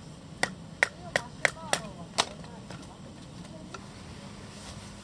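About six sharp knocks in quick succession in the first half, some with a brief faint ringing, then they stop.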